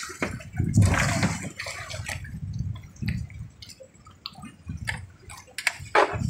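Water sloshing and splashing around small wooden boats, with scattered knocks and thumps as large tuna are hauled across the gunwales from one hull to the other.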